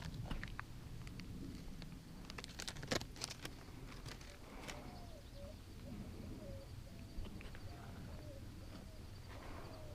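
Footsteps on the trail, with a few sharper steps about three seconds in, then a bird calling a run of short, low, wavering notes through the second half.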